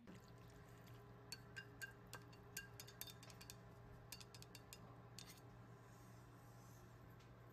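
Light clicks and clinks of a wooden spatula tapping and scraping against a ceramic bowl as tomato sauce is scraped onto a plate of spaghetti: about a dozen quick ticks over a few seconds, then they stop. A low steady hum runs underneath.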